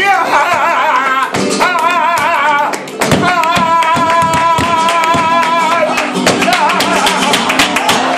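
Live flamenco: a singer's wavering, ornamented voice over acoustic guitar and steady rhythmic hand-clapping (palmas), with one long held note in the middle.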